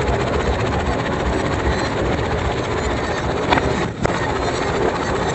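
Tractor running steadily close by, a constant low rumble. There is a short sharp crack about three and a half seconds in, and a momentary drop in the sound just after.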